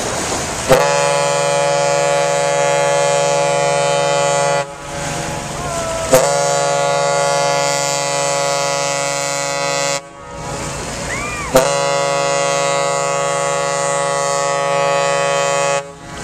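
Ship's horn of the yacht SeaDream II sounding three long steady blasts of about four seconds each, separated by short gaps.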